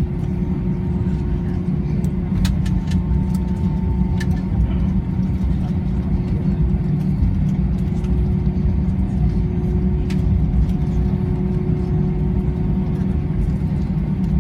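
Steady low rumble inside an airliner cabin on the ground after landing, with a constant hum running through it. A few short sharp clicks come about two to four seconds in and again about ten seconds in.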